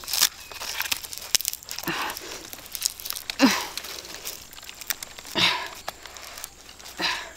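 Dry banana bracts and stalk fibres crackling and tearing as bananas are pulled and twisted off the bunch by hand, with many small clicks and four louder crackles about every second and a half, the loudest about halfway through.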